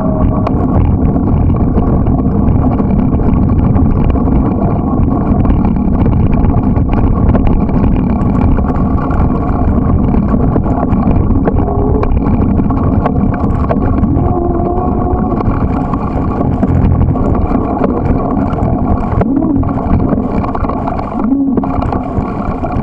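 Steady loud rumble of riding a bicycle: wind on the microphone mixed with tyres rolling over a dirt and gravel lot, with a few faint short squeaks.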